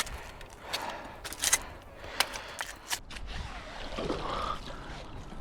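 Metal scrap finds being handled, giving about half a dozen sharp clicks and knocks in the first three seconds.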